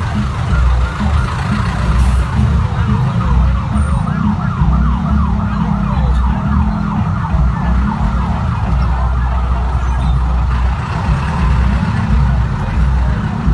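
A siren sounding in fast, evenly repeating sweeps over the steady low rumble of a vehicle engine in traffic; the sweeps fade out about ten seconds in.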